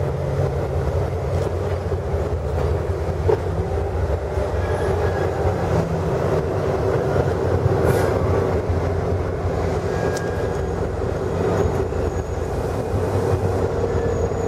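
TE3 diesel locomotive's 2D100 opposed-piston two-stroke diesel running steadily while warming up, as the locomotive creeps slowly along the track.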